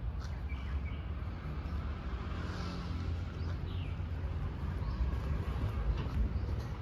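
Steady low rumble of motorbike traffic, with a few faint high chirps above it.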